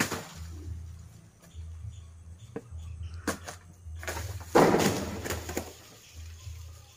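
Knocks and scrapes of a man climbing a coconut palm trunk by hand and foot, with one louder rustle of about a second just past the middle, over a low on-and-off rumble.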